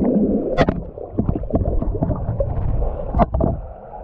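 Water rushing and splashing around a camera carried down a water slide, with several sharp knocks from the camera and body bumping along the slide.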